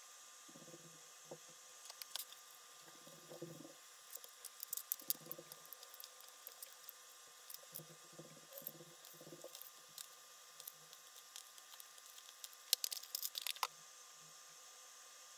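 Faint clicks and taps of small plastic toy parts, button caps and a plastic button panel, being handled, fitted and set down on a desk mat. A quick run of small clicks near the end as small screws are moved about on the desk.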